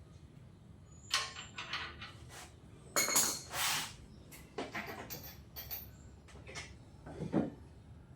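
Metal hand tools clinking and clattering in irregular knocks while being sorted through to find one of the right size, the busiest stretch a little before the middle.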